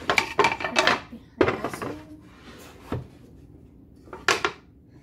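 Clatter and sharp knocks of kitchen items being handled and set down on a countertop, in several short clusters with pauses between.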